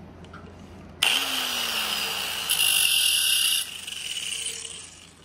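Electric angle grinder switched on about a second in and grinding the end of a piston ring to open up its end gap. It gets louder for about a second in the middle, then eases off and dies away near the end.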